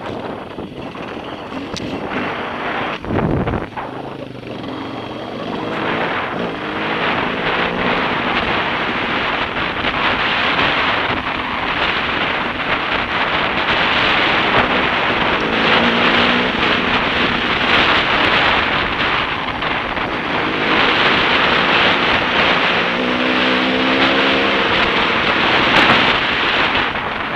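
Dirt bike engine running under way on a rough dirt trail, its pitch rising and falling as the throttle opens and closes, with wind rushing over the helmet-mounted microphone. A brief low thump comes about three seconds in.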